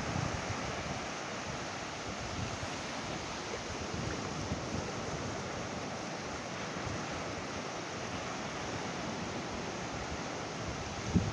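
Ocean surf washing steadily on a beach, a continuous hiss of breaking waves, with a little wind buffeting the microphone near the start and again at the end.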